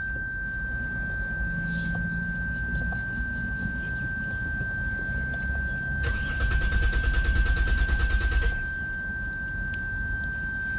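Lexus GS300's 3.0-litre V6 cranked by the starter motor for about two and a half seconds, starting about six seconds in, with a steady pulsing rhythm and no catch: a crank-but-no-start fault.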